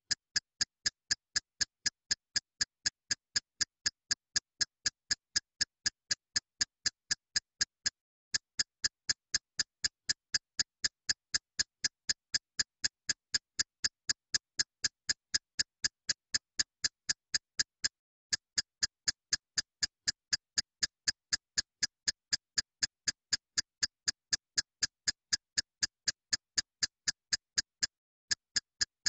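Steady, even ticking, about three sharp ticks a second, with a brief break roughly every ten seconds: a looped tick track laid over the video.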